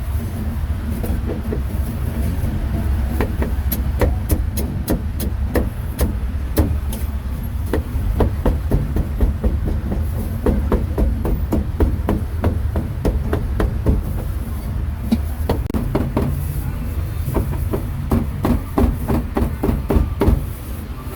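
Cleaver chopping pork on a wooden chopping block: rapid runs of sharp strikes, several a second, starting about three seconds in, over a steady low rumble of street traffic.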